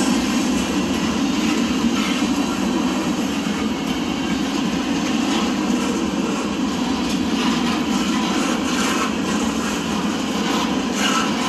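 Freight train's boxcars rolling past over a grade crossing: a steady rumble of steel wheels on the rails with metallic rattling, and a few sharper metallic noises toward the end.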